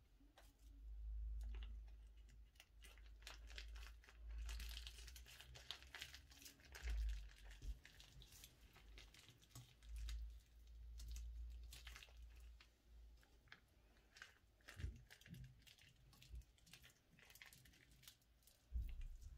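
Slime being squeezed and worked in plastic piping bags: soft plastic crinkling with many small scattered clicks and crackles, and low handling thumps.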